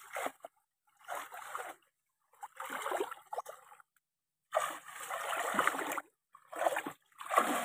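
Water splashing and sloshing in irregular bursts as people wade through deep water, a surge with each stride.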